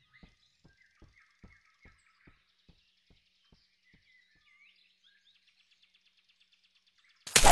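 Small, light footsteps of a chinchilla pattering away on a forest path, a couple of steps a second and fading out, under faint birdsong. Near the end a sudden loud burst of noise.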